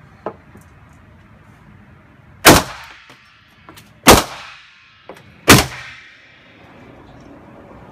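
Three shots from a SIG Sauer P250 pistol in .380 ACP, about a second and a half apart, each echoing off the walls of an indoor range.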